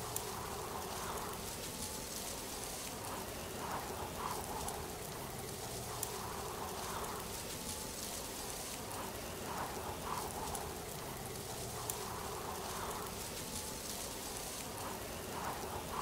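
Steady rain-like rush of falling water, a soft even hiss, with faint chirps and a small tick that recur every few seconds in a repeating pattern.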